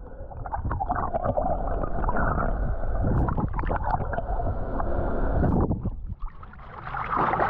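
Muffled underwater rushing and gurgling of seawater past a camera held below the surface beside a released bluefin tuna. Near the end the camera comes up to the surface and the sound opens out into splashing water.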